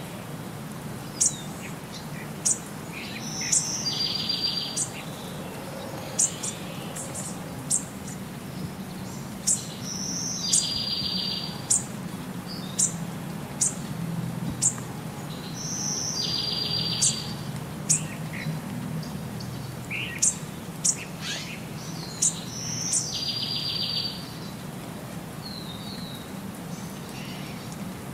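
Songbirds calling: short high chirps every second or two, and a short trill that repeats about every six seconds, over a low steady hum.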